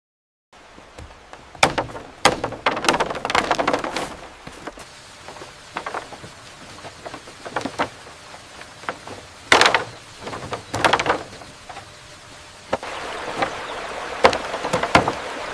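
Building work: irregular knocks and clatters, some in quick clusters, over a light steady hiss that becomes louder about 13 seconds in.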